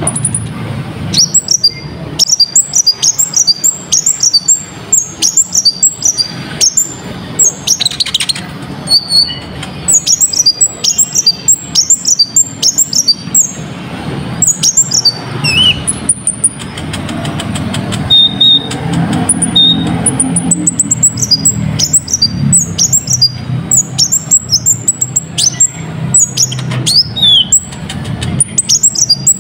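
A konin sunbird in full song: rapid bursts of sharp, high twittering and chirping phrases with short pauses between them, over a steady low hum.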